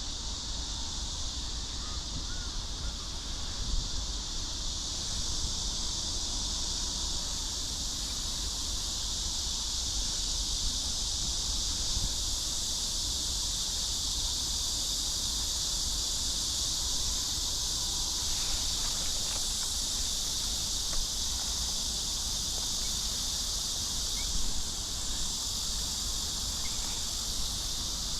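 Steady outdoor ambience: an even high-pitched hiss with a low rumble underneath and a few faint, brief bird calls.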